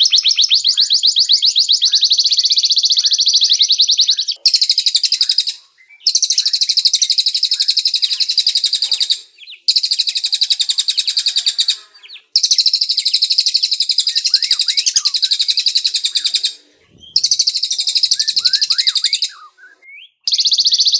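Domestic canary singing: long rolling trills of very rapid, evenly repeated high notes, in phrases of one to four seconds broken by short pauses. Fainter short falling chirps sound beneath them.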